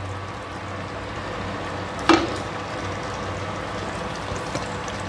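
Thick chilli-garlic chutney sizzling steadily in a pan as it cooks down to thicken, with a single sharp knock about two seconds in.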